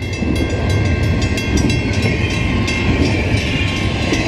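Canadian Pacific double-stack intermodal freight train rolling past: a steady rumble with rapid rail clicks and a high steady ringing tone over it.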